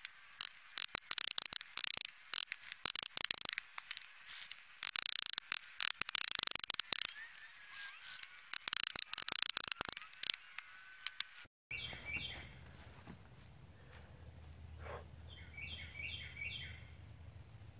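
Bow saw cutting through a log in rapid rasping strokes, which stop abruptly about two-thirds of the way through. After that, birds chirp in a few short bursts over a low hum.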